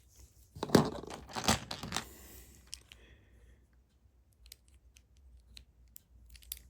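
Handling of LEGO pieces and their packaging: a few loud rustling scrapes in the first two seconds, then light scattered clicks as small plastic parts are picked up and fitted.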